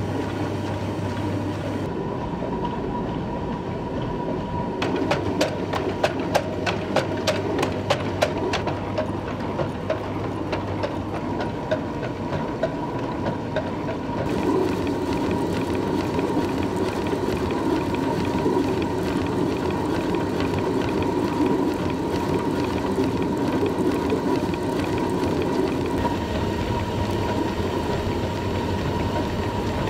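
Stone flour mill running, a steady mechanical hum and grinding, with a quick regular tapping, about three or four taps a second, from about five to twelve seconds in; the grinding grows louder about halfway through.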